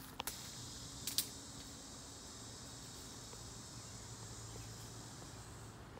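Insects buzzing in a steady high pitch, stopping abruptly shortly before the end. Two sharp clicks in the first second or so.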